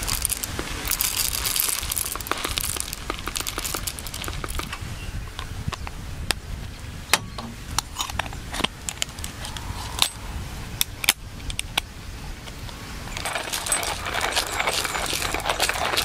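Scattered light clicks and small metallic clinks of items being handled. A hissing, rushing noise builds up over the last few seconds.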